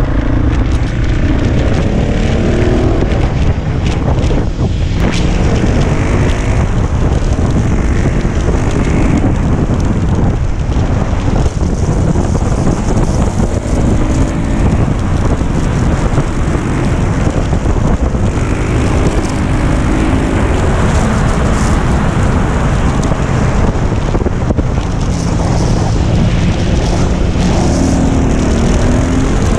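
KTM 690 SMC R's single-cylinder engine at track pace, its note rising and falling again and again as it accelerates, changes gear and slows for corners, with wind rushing over the microphone.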